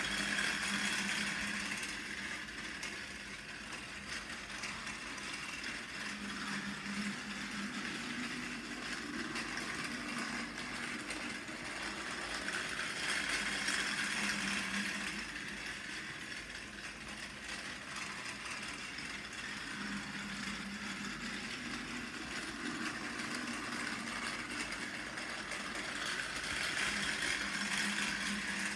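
Battery-powered Plarail toy train (Hiro, a D51-style steam locomotive) running laps on plastic track: a steady motor and gear whir with wheel rattle. It grows louder about every fourteen seconds as the train passes close by.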